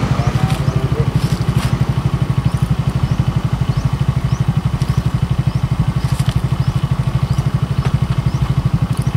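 Small motorcycle engine idling close by: a steady, even, fast low chug.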